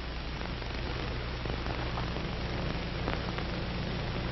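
Steady hiss and low hum of an old TV film soundtrack, with a few faint clicks, and no speech or music.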